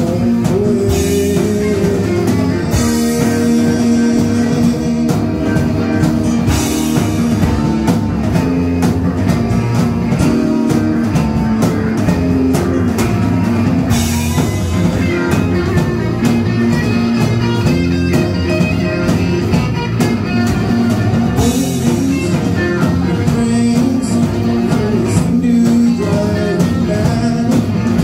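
Live rock band playing: electric guitar lead with long held notes over drum kit and bass, the cymbals washing in every so often.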